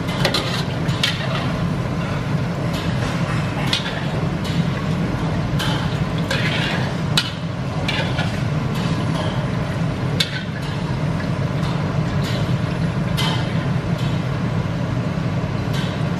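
Gas wok burner running with a steady low hum under a wok of hot frying oil. Scattered sharp metal clinks and scrapes come from a wire strainer and ladle working against the steel wok as fried cashews are lifted out and drained.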